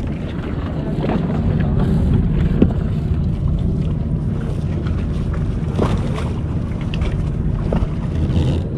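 A motorized fishing boat's engine running steadily while the boat is under way, with a few short knocks, the loudest about two and a half seconds in.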